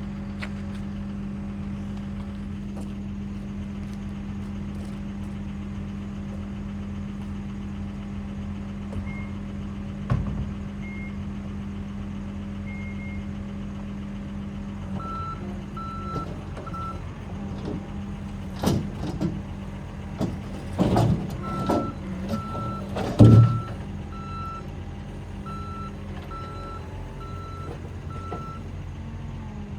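John Deere 317G skid steer's diesel engine running steadily under operation. Its reverse alarm beeps in an even series while it backs up, starting about halfway through. Several clunks and knocks come from the working machine, the loudest about three quarters of the way in.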